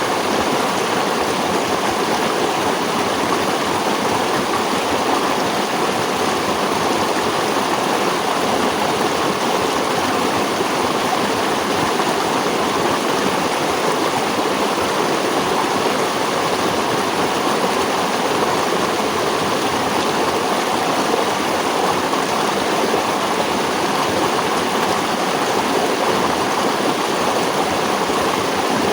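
Running water of a stream, flowing steadily with no breaks or changes.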